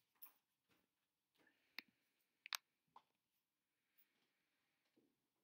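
Near silence: the room's background with a few short clicks, the sharpest about two and a half seconds in.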